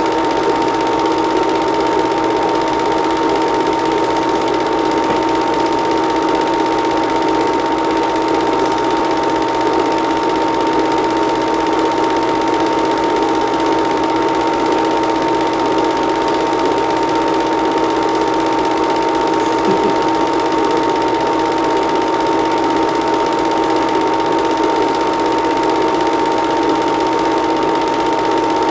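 Steady mechanical whir and fast, even clatter of a film projector running, with a constant whine.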